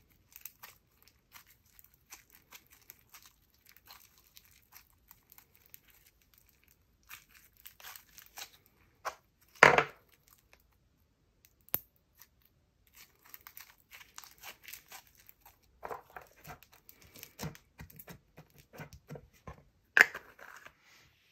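Floam slime, a slime packed with tiny foam beads, squeezed and kneaded by hand, giving a fine crackling and popping. About ten seconds in there is one loud thump, then more crackling as the slime is pressed into its plastic tub, and a sharp click near the end as the lid goes on.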